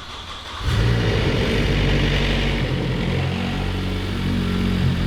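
Ford Focus ST's stroked turbocharged four-cylinder engine running. It comes in loud just under a second in and holds steady, with the revs shifting slightly a few times.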